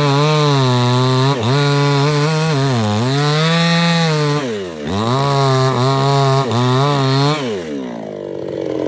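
New West 628 two-stroke chainsaw with a 24-inch bar at full throttle, sawing through the base of a sengon trunk. The revs dip briefly under load twice. About seven seconds in the throttle is released and the engine drops to a lower, steady run.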